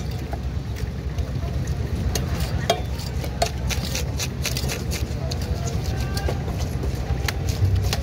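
Scattered sharp clicks and scrapes of a rohu fish being scaled and cut against an upright bonti blade, over a steady low background rumble.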